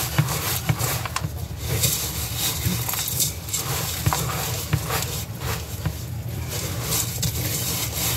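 Silicone spatula stirring a thick oat and peanut butter mix in a stainless steel bowl: irregular scrapes and soft knocks against the metal over a steady low rumble.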